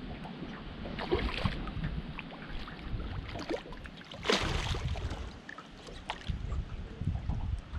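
A hooked flathead thrashing and splashing at the water's surface beside the boat as it is drawn to the net, with several short splashes and the loudest about four seconds in. A steady low rumble of wind on the microphone runs underneath.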